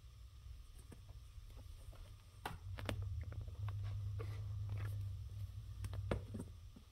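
Soft rustling and scattered light taps and clicks as a hand strokes a cat's fur and the cat rolls and paws on carpet, over a low steady hum. The hum gets louder about two and a half seconds in.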